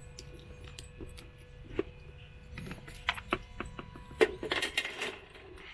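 Keys jangling and clicking on a key ring as a key unlocks the plastic exterior shower hatch of an RV and the hatch door is swung open, in a string of small rattles and clicks. A sharp knock about four seconds in is the loudest sound.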